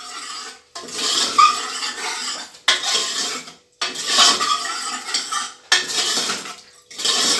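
Metal ladle scraping and stirring against the inside of a pressure cooker pan as a thick mutton, onion and tomato masala is fried down. The stirring comes in several stretches broken by brief silences.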